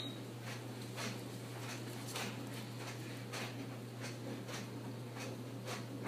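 Faint, irregular soft clicks and rustles, roughly two a second, from fabric being handled by hand at a sewing table, over a steady low electrical hum.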